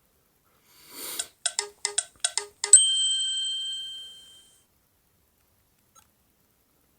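Alcatel OT-808 mobile phone playing one of its preset ringtones: a brief swish, a quick run of about seven chiming notes, then one bright bell-like note that rings on and fades over about two seconds.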